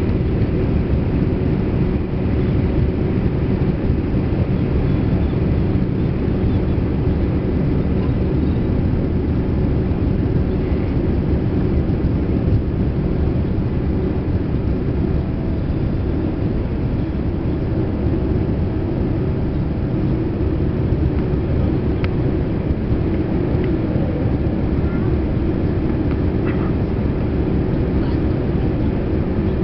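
Steady low rumble of a Boeing 787-8's jet engines and airflow heard from inside the economy cabin, with a few faint ticks.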